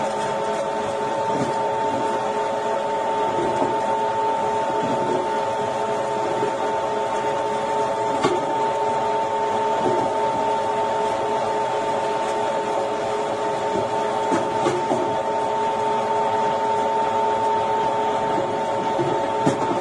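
Commercial stainless-steel electric meat grinder running steadily, its motor giving a constant whine, while seasoned köfte mince is fed in and pushed out through the grinding plate. A few light knocks sound over it.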